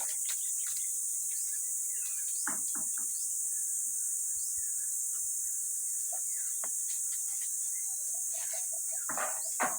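Steady high-pitched insect chorus with scattered brief clicks and knocks, and a louder short knock near the end.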